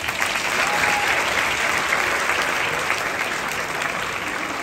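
An audience applauding. The clapping starts abruptly and slowly dies down.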